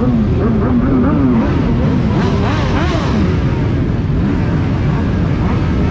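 A large pack of motorcycles running together, engines rumbling steadily while riders blip their throttles, pitch rising and falling over and over in quick revs that are most prominent in the first second or two.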